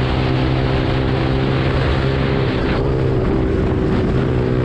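Yamaha R15's single-cylinder engine running at steady revs while the bike cruises, with wind rushing over the microphone.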